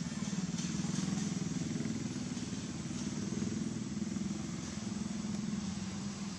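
A small engine running steadily: a low, finely pulsing hum that holds at much the same level throughout.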